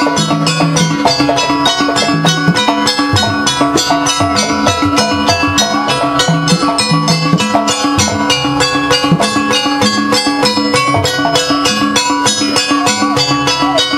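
Jaranan Buto accompaniment music: a percussion-led gamelan-style ensemble of drums and gongs playing a fast, even beat over held tones and low notes that change every second or so.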